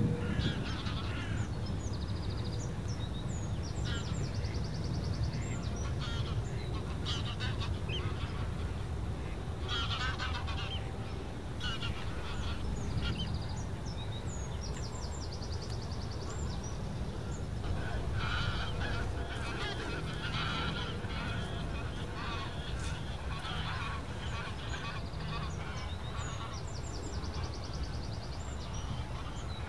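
Greylag geese honking in flight, the calls coming in several bouts, over a steady low rumble.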